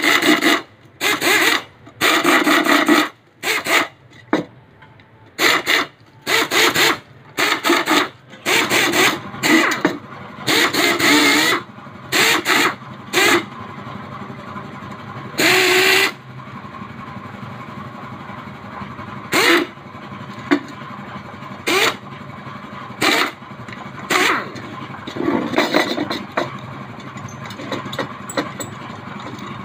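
Power spoke-nipple driver whirring in short, rapid bursts as spokes are run into a motorcycle wheel rim, the bursts coming thick and fast at first and more spaced out later.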